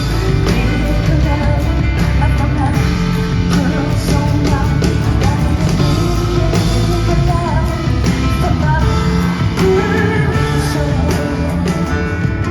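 Live band playing a rock song at full volume, with drums and bass under a woman's singing voice.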